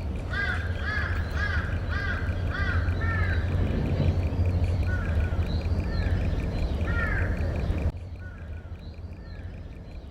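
A series of bird calls, about two a second for the first three seconds, then scattered calls, over a steady low rumble. The rumble drops away suddenly near the end.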